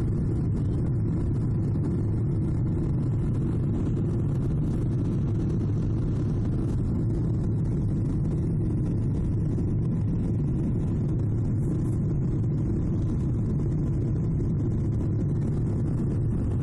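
Steady low rumble of a Boeing 777's engines and rushing air, heard inside the passenger cabin during the climb after takeoff.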